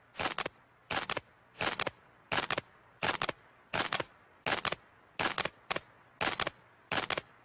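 A steady rhythm of sharp double clicks, about ten pairs evenly spaced roughly 0.7 s apart, each pair two quick strokes close together.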